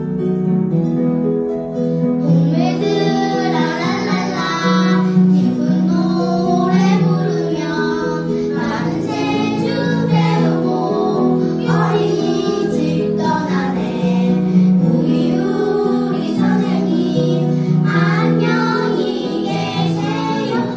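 Music: a song with acoustic guitar chords and a singing voice that comes in about two seconds in.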